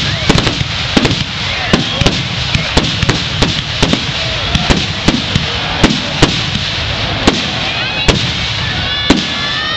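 Aerial fireworks shells going off in a rapid run, about two sharp bangs a second, over a continuous hiss.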